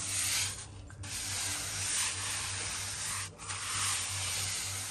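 Hand float rubbing over fresh cement screed in long sweeping strokes, a steady scraping hiss that breaks off twice for a moment as the float is lifted and turned.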